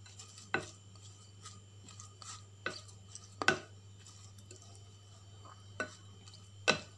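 A spoon stirring shredded raw vegetables in a glass bowl, knocking against the glass in about five sharp clinks at irregular intervals, one of them a quick double clink about halfway through. A faint steady low hum lies underneath.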